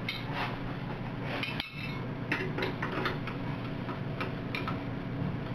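Steel open-end wrenches clinking against a hydraulic hose fitting as it is tightened, a series of light, irregular metallic clicks over a steady low hum.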